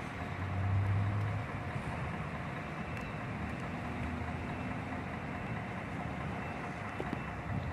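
Intercity coach's diesel engine running at low revs over a steady hum of traffic, its note swelling briefly about a second in.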